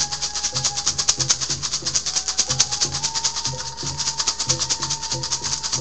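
A hand rattle shaken rapidly and steadily, about ten shakes a second, with soft low beats under it. A long held tone sounds throughout, dropping slightly about two seconds in and rising about a second later.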